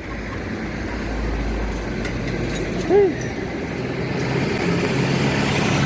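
Street traffic: motor vehicles running and passing, with a steady engine hum building from about four seconds in. A brief rising-and-falling tone about three seconds in is the loudest moment.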